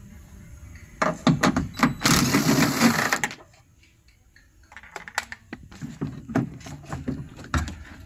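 Handling noises on a car door's bare inner panel during disassembly: scattered clicks and knocks, with a loud noisy burst lasting about a second and a half, about two seconds in.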